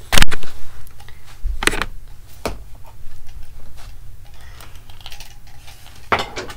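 Markers clattering in a ceramic mug as it is moved against the microphone, the loudest sound, right at the start. Scattered knocks and rustling follow as things are handled and moved about.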